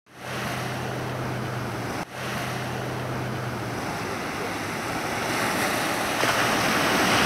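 Small waves breaking and washing up onto a sandy beach, a steady rush of surf that swells louder near the end.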